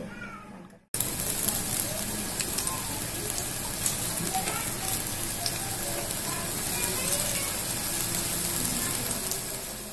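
Taro-leaf and chana-dal pakoras deep-frying in hot mustard oil: steady sizzling with fine crackles that begins suddenly about a second in.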